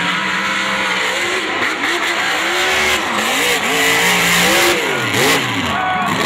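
Mud truck's engine revving, its pitch rising and falling over and over as the throttle is worked on and off.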